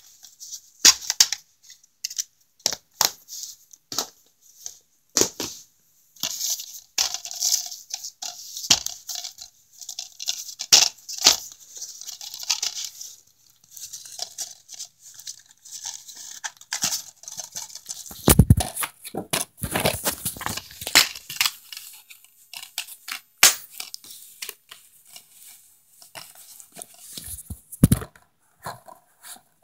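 Plastic DVD cases being handled and moved about: an irregular run of clicks, taps and rustles, with a heavier thump about eighteen seconds in and another near the end.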